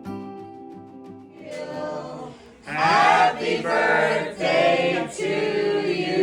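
Music: a soft held chord, then a choir singing in from about two and a half seconds in.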